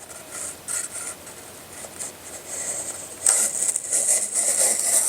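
Sharpening stone scraping along the edge of a VG-10 steel Japanese knife held in a guided sharpener. A few faint short strokes come first, then a louder, steady hiss of stroking from about three seconds in.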